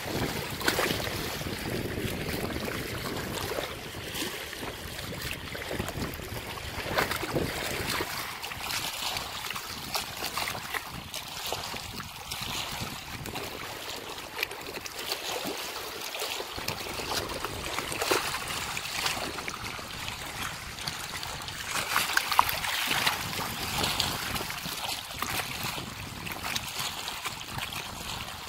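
Small waves lapping and splashing against a rocky shoreline, an irregular wash with many small splashes.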